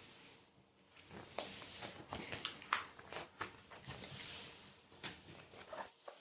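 Faint rustling and irregular clicks from plastic card-binder pages being handled.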